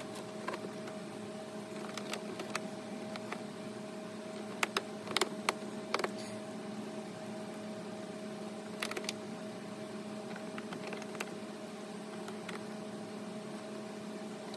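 A steady hum in the background, with a scattered handful of light clicks and taps, most of them bunched a few seconds in, from plastic trim clips and panels being handled while the battery compartment is put back together.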